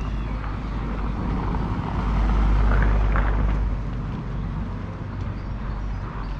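A vehicle passing by, its noise swelling about two seconds in and fading again by four, over a steady low rumble.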